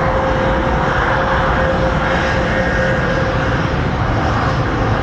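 Jet airliner's engines at takeoff thrust during the takeoff roll: a steady roar with one steady tone held through it.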